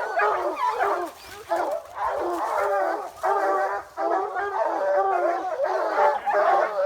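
A pack of bear hounds baying and barking over one another, with barely a pause.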